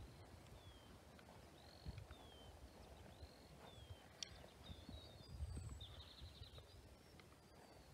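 Near silence with faint birdsong: a small bird repeats short whistled notes about once a second, with a brief trill about halfway through. A few soft low thuds are also faintly heard.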